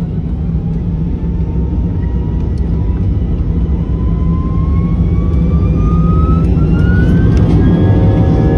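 An Airbus A320's IAE V2500 turbofan engines spool up for takeoff. A deep rumble grows louder under a whine that rises steadily in pitch.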